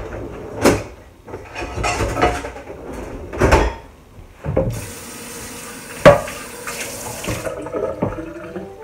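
Sharp metal knocks and clatter as a nonstick frying pan is handled at a stainless steel sink. About halfway through the tap runs for roughly three seconds over the pan, then is shut off.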